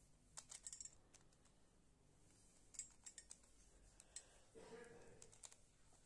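Faint plastic clicks of a Square-1 puzzle being turned by hand, coming in a few quick runs as its layers rotate and slice.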